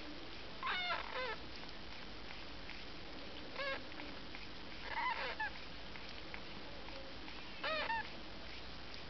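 Eight-day-old Siamese kittens mewing: four short bouts of one or two squeaky mews each, a couple of seconds apart.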